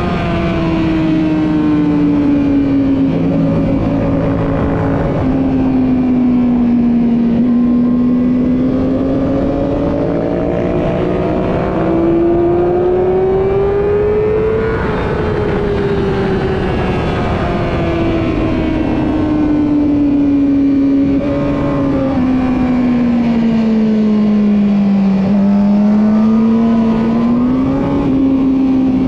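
Yamaha R6 sportbike's inline-four engine pulling and easing off, its pitch rising and falling slowly over several seconds with a few brief dips, over a steady rush of wind.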